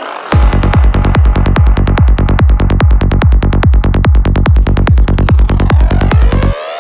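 Progressive psytrance: a steady kick drum and rolling bassline under layered synths. The bass drops out briefly at the very start and again near the end, where a rising synth sweep leads back into the beat.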